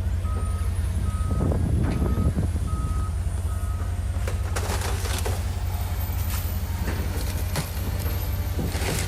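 Steady low rumble of street traffic with a vehicle's reversing beeper giving five short, evenly spaced beeps in the first few seconds. Scattered scuffs and crackles follow in the second half.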